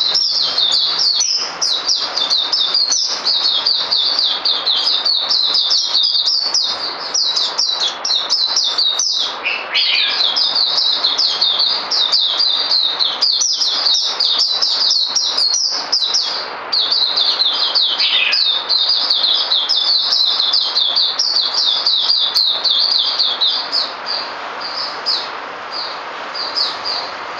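A white-eye (mata puteh) singing an unbroken run of rapid, high-pitched twittering, with a lower down-slurred note twice. The song grows a little softer near the end.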